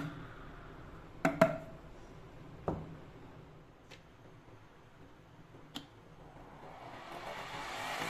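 A few sharp plastic clicks and taps from a homemade LED-bulb vacuum cleaner being handled: a quick double click just after a second in, one more a little later, and a single click near the end as a DC power plug is pushed into its socket. A rising noise begins shortly before the end.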